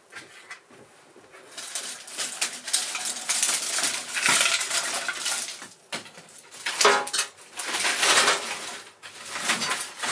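Dry stalks and brushwood rustling and snapping as they are handled and pushed into a clay floor fire pit, in uneven bursts with short pauses, starting up about a second and a half in.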